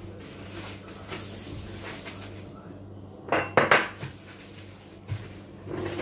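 Kitchenware clattering: dishes and utensils being handled, with a short burst of loud clinks and knocks a little past halfway and a couple of lighter knocks near the end, over a steady low hum.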